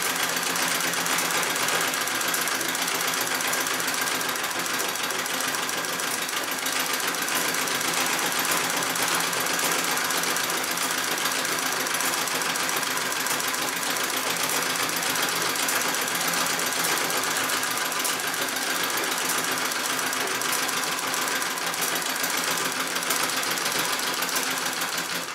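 Singer 66 treadle sewing machine stitching steadily at speed during free-motion quilting, the needle going rapidly up and down in an even mechanical rattle. It cuts off suddenly at the very end.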